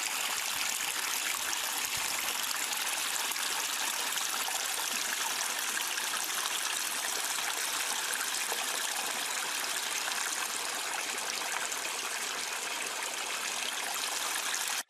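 Running water, a stream flowing steadily and evenly.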